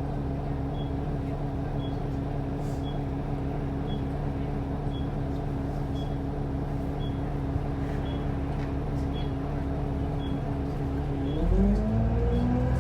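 Optare Versa single-deck bus engine idling steadily, heard from inside the bus, with a light high tick about twice a second. Near the end the engine pulls up in rising pitch as the bus moves off.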